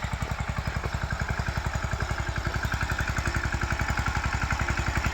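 Engine running at a steady, even chugging beat of about a dozen pulses a second.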